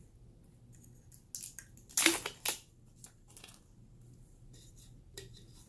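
Plastic spool of braided fishing line handled and turned in the hands: a cluster of scraping clicks and knocks between about one and a half and two and a half seconds in, loudest around two seconds, then a few lighter clicks.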